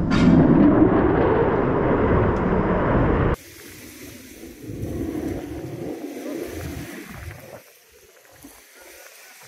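Loud, steady jet roar from an F-35A's Pratt & Whitney F135 turbofan, cut off abruptly about three and a half seconds in. After it comes a much quieter, uneven low rumble that fades away near the end.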